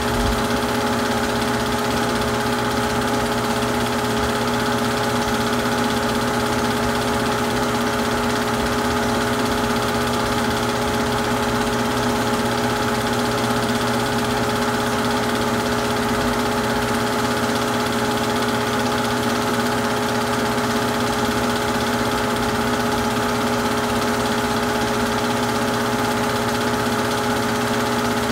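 Super 8 film projector running: a steady motor hum and whir that does not change.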